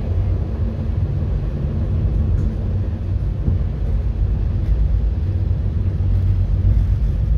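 VIA Rail's The Canadian passenger train rolling along the track, a steady low rumble heard from inside its rear car.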